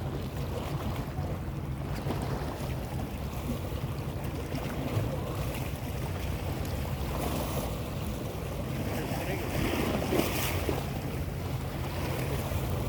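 Sea waves washing and wind buffeting the microphone over a steady low rumble, with a louder surge of wash about ten seconds in.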